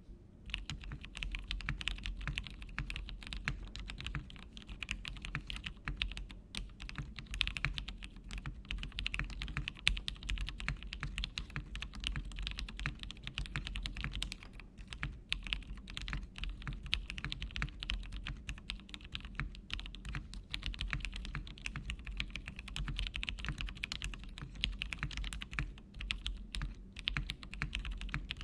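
Continuous fast typing on a custom polycarbonate mechanical keyboard with Gateron Ink switches, a carbon fibre half plate and PBT keycaps: a dense run of keystroke clacks with a few brief pauses.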